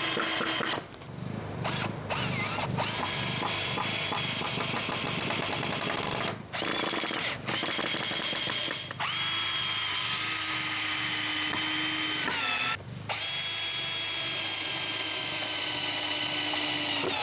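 Cordless drill driving screws into 2x4 lumber. The motor whines steadily in runs of one to several seconds, with short pauses between screws.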